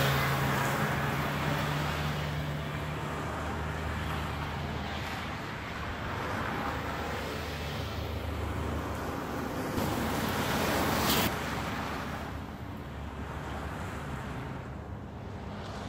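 A Mercedes-Benz C 300 Cabriolet with its turbocharged four-cylinder engine drives past in a parking lot, engine humming under tyre and rushing noise. A louder rush swells about two-thirds of the way in and cuts off suddenly.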